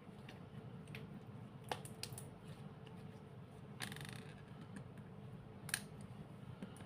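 Small handling noises: a few sharp clicks and taps, and one brief rustle about four seconds in, over a faint steady hum.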